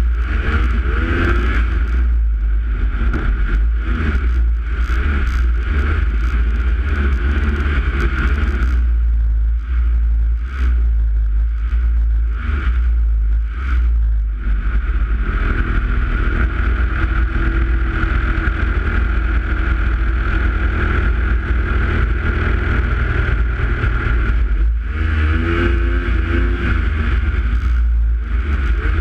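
Snowmobile engine running at speed, its note rising and falling with the throttle, most clearly near the start and again near the end, under heavy wind rumble on the camera microphone.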